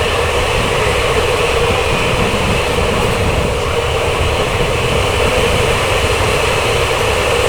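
Moving Indian Railways passenger train heard from on board: a loud, steady rumble and rush of wheels on rails and air, with no distinct rail-joint clicks.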